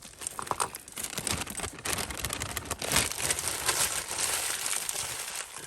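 A bag of mystery costume jewellery crinkling and rustling as it is handled and emptied. Small clicks of the pieces sound through the crackle, which thickens about a second in.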